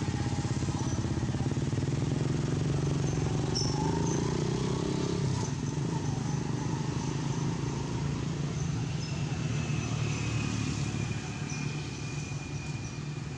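An engine running steadily as a low, even hum, easing off slightly near the end.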